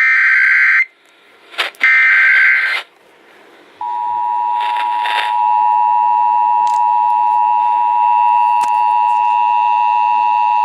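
Emergency Alert System tones: two harsh bursts of SAME digital header data in the first three seconds, then the steady two-tone attention signal (853 and 960 Hz together) starting about four seconds in.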